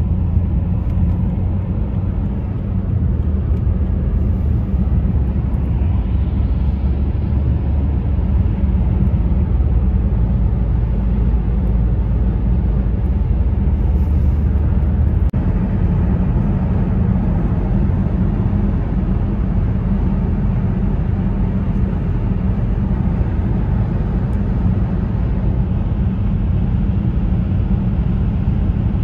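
Steady low rumble of a car's tyre and engine noise at highway speed, heard from inside the cabin. The rumble shifts slightly about halfway through.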